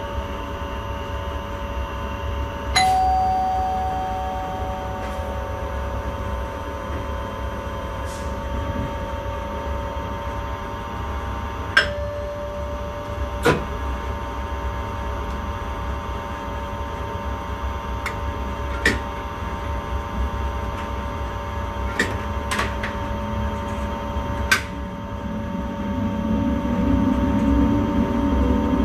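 Intercity train running, heard from inside the driver's cab: a steady rumble with a few steady tones, broken by several sharp clicks, one of them followed by a brief ding-like ring about three seconds in. The running noise grows louder near the end.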